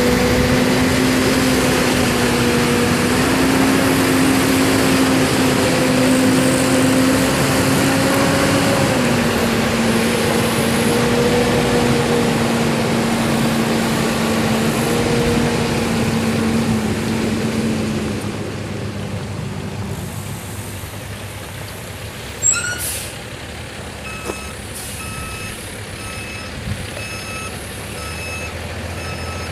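Cummins 8.3 L six-cylinder turbo diesel of a Peterbilt 348 truck running with a steady droning tone that eases off about 18 seconds in. Then a sharp hiss of the air brakes releasing, and the backup alarm starts beeping about once a second: the truck has been put in reverse.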